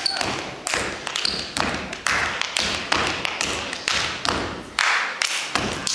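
Two step dancers stepping unaccompanied: foot stomps, hand claps and body slaps in an uneven rhythm of sharp hits, about three a second, each echoing briefly in the hall.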